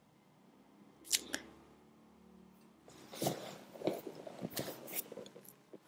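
Two quick, sharp clicks about a second in, then from about three seconds on irregular crackling rustles: a hand rubbing the head close to the microphone.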